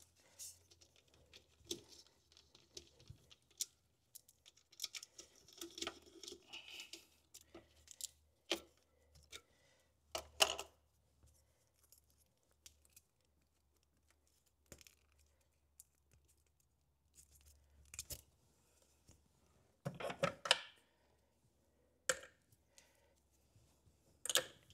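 Faint, scattered clicks and clinks of hand tools (a socket on extensions) against metal engine parts being worked loose, with a few louder knocks about ten seconds in, around twenty seconds in, and near the end.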